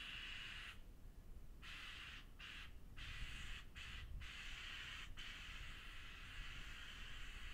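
Spray gun on a roofing spray rig hissing as the roof is sprayed, stopping briefly several times as the trigger is let off, the longest pause about a second in.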